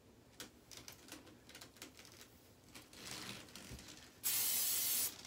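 Hairspray sprayed from a can in one steady hiss lasting under a second, about four seconds in, set at the root of a section of hair held up while it is teased. Before it, faint scratchy strokes of a teasing comb backcombing the hair.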